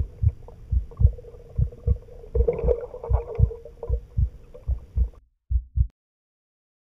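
Muffled underwater sound in a swimming pool: low, irregular thuds about two or three a second over a steady hum and faint bubbling. It cuts off about five seconds in, leaving two more thuds and then silence.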